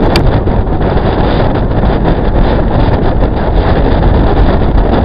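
Loud wind buffeting the microphone over the steady drone of a tour boat's engine, heard from on deck.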